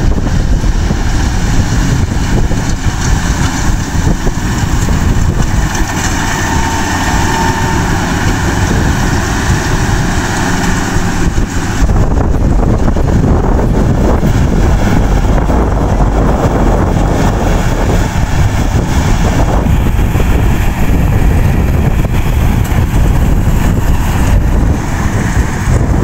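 A rice combine harvester runs steadily under load, cutting and threshing standing rice: a loud, continuous engine-and-machinery din with a deep rumble. About halfway through the sound changes abruptly to a heavier, more rumbling noise.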